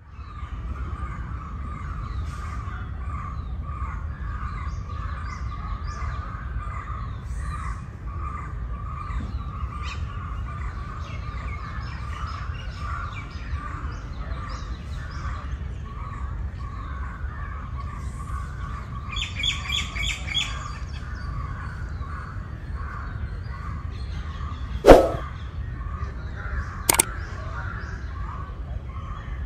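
Birds chirping and calling over a steady low rumble. About two-thirds of the way in comes a quick run of high repeated notes, and near the end there are two sharp knocks, the first the loudest.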